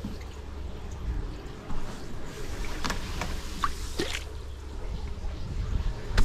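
Push broom shoving floodwater across a concrete floor, the water splashing and swishing ahead of the broom head, with a few sharp knocks over a steady low rumble.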